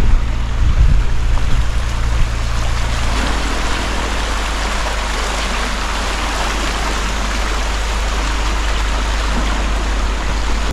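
Floodwater of a swollen river rushing steadily, a dense even hiss. A low rumble with a few bumps sits under it for the first two or three seconds.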